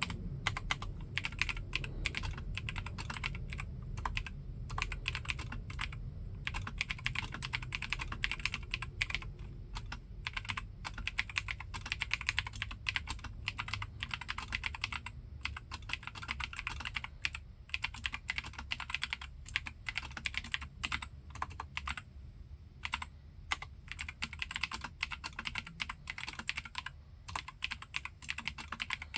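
Steady typing on a Keychron K4 mechanical keyboard fitted with spray-lubricated Gateron Blue clicky switches: a dense, fast run of key clicks with a few brief pauses.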